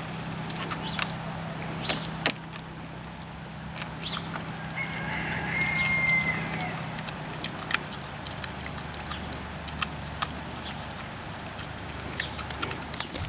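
Siberian husky chewing a scrap from a raw cow marrow bone: scattered sharp clicks and crunches. A bird calls once about five seconds in, over a steady low hum.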